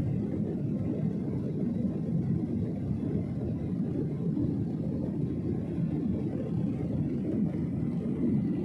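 Airliner cabin noise: a steady low rumble of engines and airflow heard from inside the passenger cabin, shortly after takeoff.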